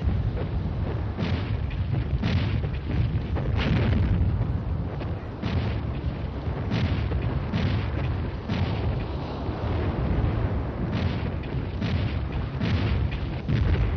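Battle sound of explosions and gunfire: a continuous low rumble broken by sharp bangs roughly once a second.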